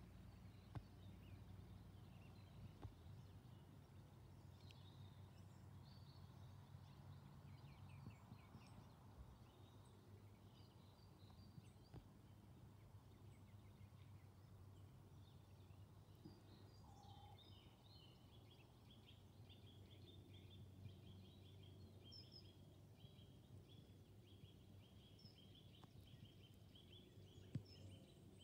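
Near silence: a faint outdoor background with a low steady hum and distant birds chirping, including a long run of quick repeated chirps in the second half.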